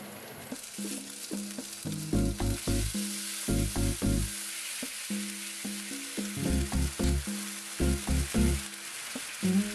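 Tofu sizzling hard in a hot frying pan as sake, mirin, soy sauce and garlic are poured in and boil down; the hiss starts about half a second in and keeps going. Background music of plucked notes plays over it.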